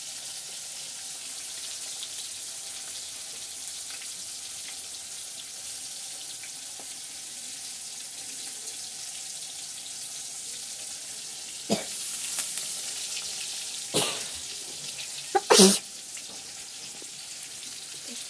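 Hot oil sizzling steadily in an aluminium kadai as potato pieces, onion and dried red chillies fry. A few sharp knocks break in about 12, 14 and 15 and a half seconds in.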